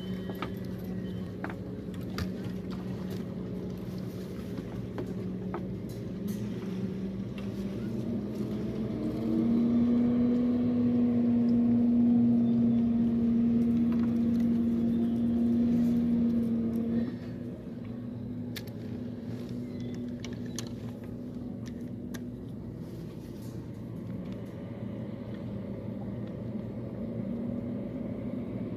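A boat engine running steadily as a low hum. About nine seconds in it rises in pitch and gets louder, then drops back suddenly about seventeen seconds in. A few light clicks come from fishing tackle being handled.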